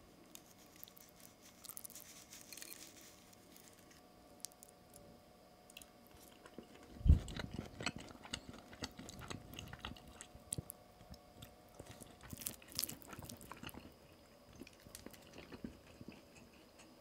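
Soft wet clicks and squelches of sticky rice and sauced beef being moved about in a ceramic bowl, with one dull knock about seven seconds in.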